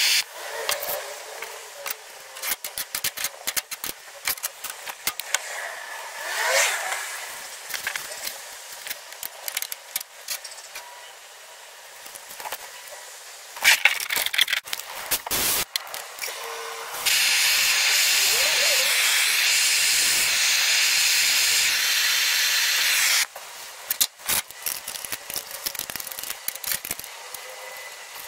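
Hand-held gas torch hissing while the corner joints of a brass plate mount are soldered, with scattered clicks and taps of metal being handled. About two-thirds of the way through, a much louder steady hiss runs for about six seconds, starting and stopping abruptly.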